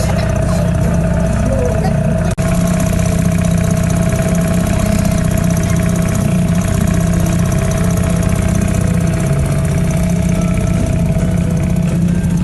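Motorboat's outboard motor running at a steady pace, with a momentary break in the sound about two seconds in.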